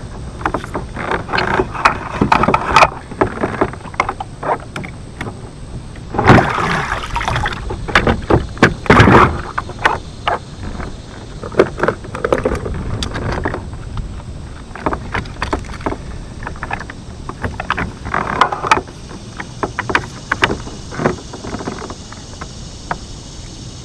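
Irregular knocks, clicks and rustling of gear being handled in a fishing kayak, with a few louder bursts of clatter, over a low wash of water and wind.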